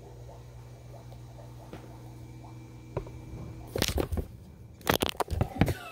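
A quiet steady hum, then from about three seconds in a run of sharp knocks and scrapes against a clear plastic tub as a mangrove snake thrashes about inside it.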